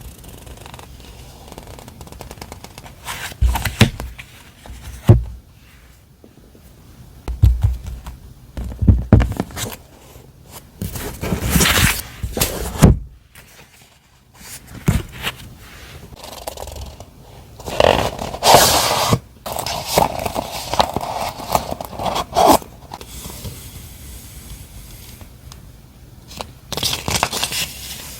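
Stationery and packaging being handled close to the microphone: irregular rustling and scraping of paper and plastic, with several sharp thumps and taps in the first half.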